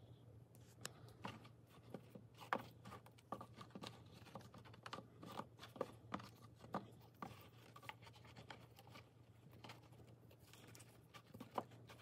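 Faint, scattered light taps and rustles of small leather goods being handled and set down in felt-lined drawer dividers, over a low steady hum.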